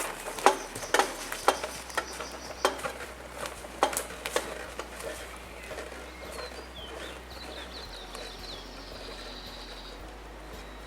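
Irregular knocks and clatters over the first few seconds, then a small bird calling with quick high chirps and a held high note.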